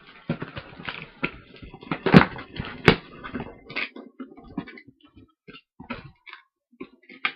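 Cardboard shipping box being forced open without scissors: scraping, tearing and rustling, with irregular knocks and two sharp, louder cracks about two and three seconds in.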